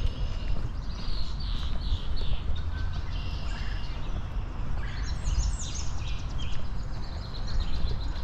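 Birds chirping in runs of short high notes, with a steady low rumble underneath.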